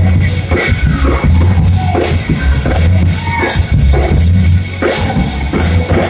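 Loud live church band music, with deep bass notes about once a second and a drum kit.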